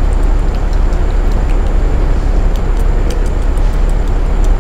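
Steady, loud low rumble of a freight train standing at the platform, with faint light ticks scattered through it.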